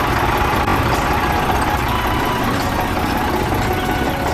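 Steady engine-like running noise, like a vehicle idling, with a faint whine riding over it.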